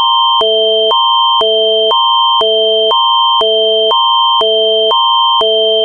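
Canadian Alert Ready emergency attention signal: a loud electronic alarm of two chords switching back and forth every half second under a constant high tone.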